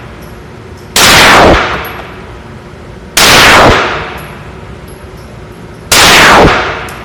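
Glock 19 Gen4 9mm pistol firing three single shots, each a few seconds apart and each with a ringing tail that dies away over about a second.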